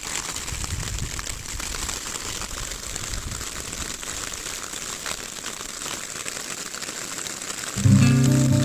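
Graupel (small soft hail pellets) falling on grass and ground: a steady, dense crackle of countless tiny ticks, with a low rumble during the first three seconds. Loud background music comes in near the end.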